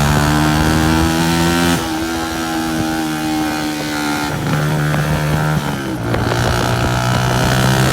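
Honda CG 125's single-cylinder four-stroke engine running loud through a burst silencer, its pitch stepping down a few times as the revs change.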